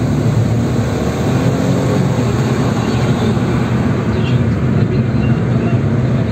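Steady low rumble of engine and tyre noise from a car driving along a city street.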